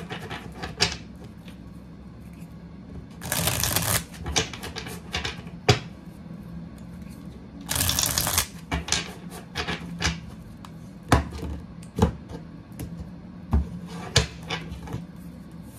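A deck of tarot cards shuffled by hand: two riffle shuffles, each a rapid flutter of the cards lasting under a second, a few seconds in and again about halfway. Between and after them come scattered short clicks and taps of the cards.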